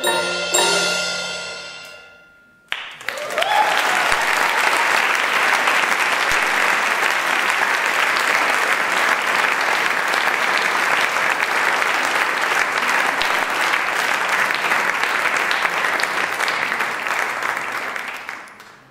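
The last notes of a mallet-percussion ensemble of marimbas and xylophone ring out and decay. After a moment of quiet, an audience breaks into steady applause, which dies away near the end.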